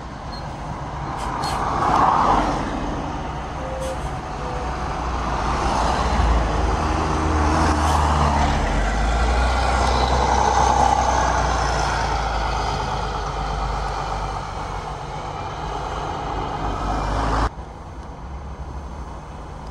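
Diesel city bus driving past close by, its engine running steadily and swelling as it goes by. The sound drops off suddenly near the end, leaving quieter traffic noise.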